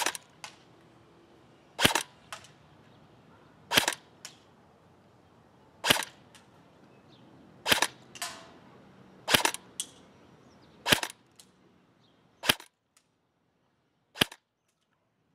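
King Arms BRO-15 airsoft electric rifle (AEG) firing single shots, nine sharp cracks about two seconds apart, each followed by a fainter tick.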